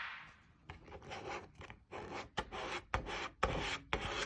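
Repeated rubbing strokes of a hand or tool pressing a new vinyl decal onto a plastic air dam to squeeze out the air bubbles. The strokes are short and scraping and come about two or three a second.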